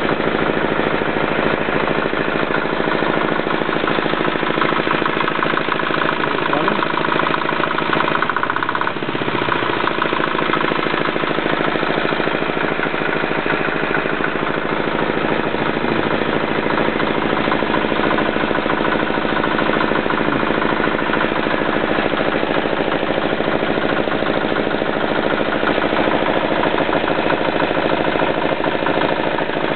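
Freshly rebuilt Suntom 186CF 406cc single-cylinder air-cooled diesel engine running steadily at a constant speed, its firing pulses coming in a fast, even rhythm.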